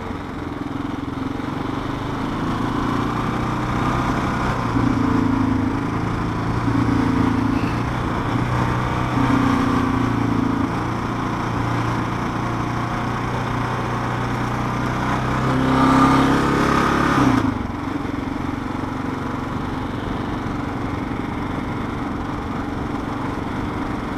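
Kawasaki KLR650's single-cylinder four-stroke engine running as the motorcycle is ridden along a country road. The engine note swells several times with the throttle, rises once more about two-thirds of the way through, then drops suddenly and runs on steadily and more quietly.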